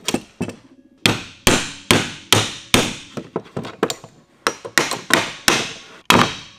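Claw hammer striking a glued, clamped wooden assembly again and again, about two to three sharp blows a second starting about a second in, knocking the stuck boards and clamp apart.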